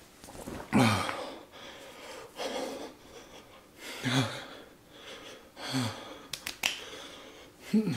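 A man breathing hard through an open mouth, with four short voiced groans about a second and a half apart, reacting to the chili burn of the Paqui One Chip Challenge chip. A few sharp clicks come just past the middle.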